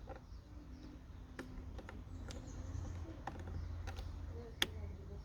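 Scattered small plastic clicks and taps from handling a car boot light unit and its LED bulb, with one sharper click about four and a half seconds in.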